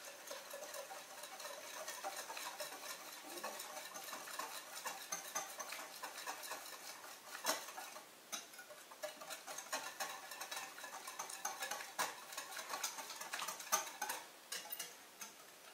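Wire whisk beating thin liquid batter in a glass bowl: a rapid, steady ticking of the wires against the glass, with a few louder knocks.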